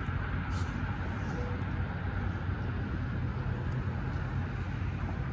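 Steady low engine hum over street traffic noise, constant in level and pitch.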